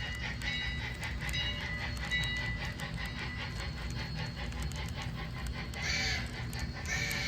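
HO scale model steam locomotive and cars running on track: a steady low rumble of the motor and wheels with a stream of small clicks over the rail joints. A brief higher tone sounds about six seconds in and again near the end.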